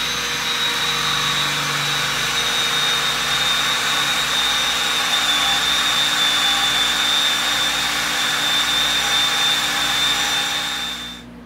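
Cordless drill running steadily under load, boring a mortise into a wooden chair leg with its bit on a long extension through a drilling guide; a steady high whine rides over the motor. It winds down near the end.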